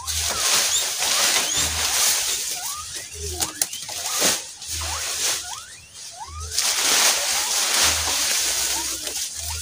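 Rustling and crunching of leafy fodder and king grass being gathered up by hand for sheep, in two long bursts with a quieter pause in the middle. Short high chirps sound through it.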